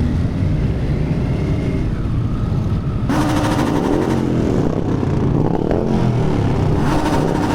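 Motorcycle engines running and revving as the bikes pull away, their pitch rising and falling with the throttle. A louder rushing noise joins from about three seconds in.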